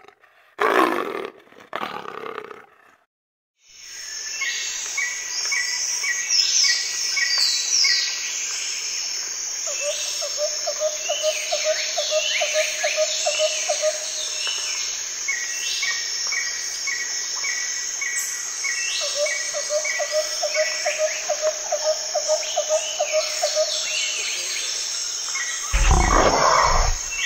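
Two short, loud roar-like growls of a big cat, then dense tropical forest ambience: a steady high insect drone, repeated series of bird chirps, and a rapid pulsing call in two stretches of a few seconds each. A loud low rumble comes about 26 seconds in.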